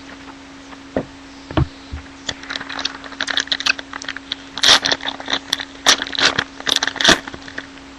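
Trading-card pack wrappers crinkling and tearing open, with cards being handled and flipped, in dense crackling bursts that are loudest in the second half. A couple of light knocks come first, and a steady low hum sits underneath.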